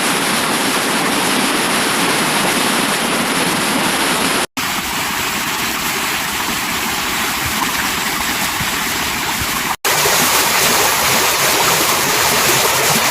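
Steady rush of falling water from a waterfall, in three stretches split by brief dropouts about four and a half and ten seconds in.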